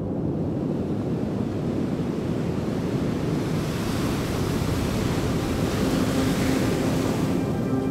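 Ocean surf: a steady wash of breaking waves, with a surge of hiss that swells from about three and a half seconds in and falls away shortly before the end.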